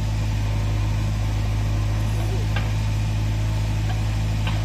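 Steady diesel engine drone of a JCB 3DX backhoe loader working its backhoe arm, digging and lifting soil, mixed with a Mahindra tractor idling beside it. A couple of faint clicks are heard partway through.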